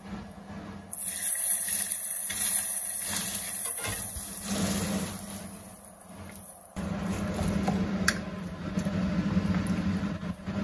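Hot rapeseed oil poured onto seasoned minced-meat filling, sizzling sharply about a second in and dying away over a few seconds. Near the middle a louder steady hum comes in and runs on.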